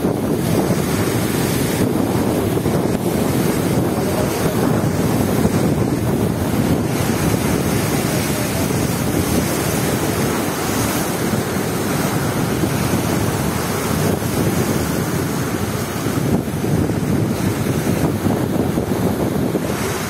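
Strong wind buffeting the microphone over rough surf, with waves breaking and washing across a stone breakwater; a steady, dense rush.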